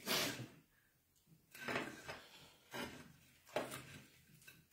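Fried fish being pulled apart by hand at a plate: four short rustling noises.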